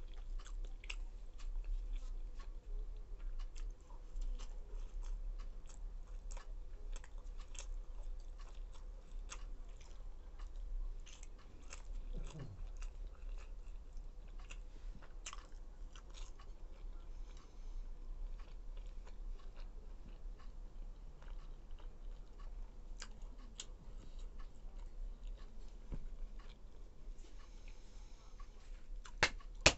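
Close-up chewing of soft roti and Maggi noodles: wet mouth sounds and many small irregular clicks, over a steady low hum. A single sharper click stands out near the end.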